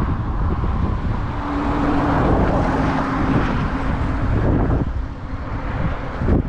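Strong wind buffeting the microphone. For a few seconds in the middle, a steady engine drone rises over it and then fades.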